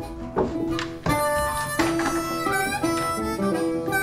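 Background music: a bluesy harmonica melody over acoustic guitar.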